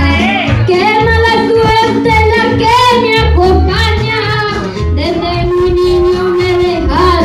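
Music: a high voice singing a melody with vibrato over instrumental accompaniment with a repeating bass line.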